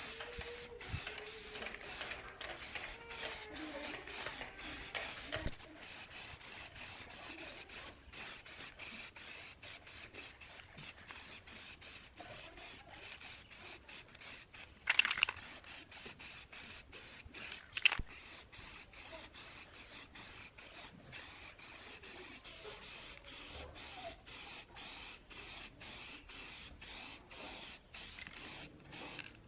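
Spray gun hissing in quick, evenly repeated bursts, with a couple of sharp knocks about halfway through.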